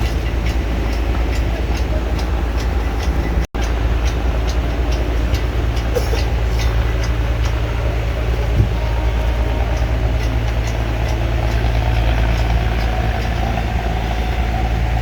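Heavy machinery running steadily with a deep hum, with fast, even ticking over it for the first half. The sound cuts out for an instant about three and a half seconds in.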